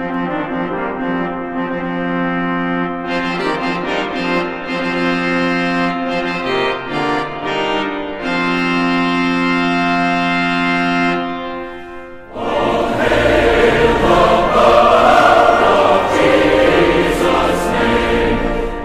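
Music: slow, held instrumental chords that change a few times, then about twelve seconds in they fade out and a choir starts singing, louder and fuller.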